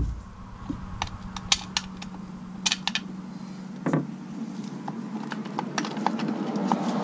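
Scattered light metallic clicks and taps of a wrench and small bolts being handled while a motorcycle's sprocket cover is unbolted, with a duller knock about four seconds in, over a faint steady low hum.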